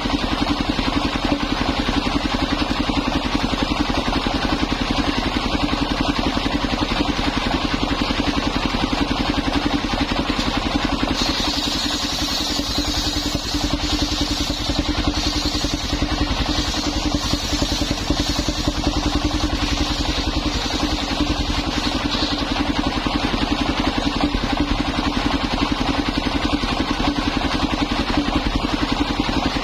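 Mobile circular sawmill: its stationary engine runs steadily with a fast even pulse, belt-driving the saw blade. For about ten seconds in the middle, the blade cuts through old coconut timber, adding a high hissing whine over the engine.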